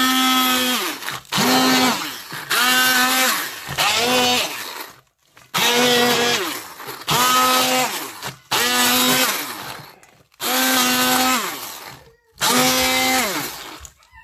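Electric immersion hand blender run in short pulses, about nine bursts of a second or so, its motor whine dropping in pitch as it spins down after each, chopping raw onion, green chillies, ginger and garlic in a steel bowl.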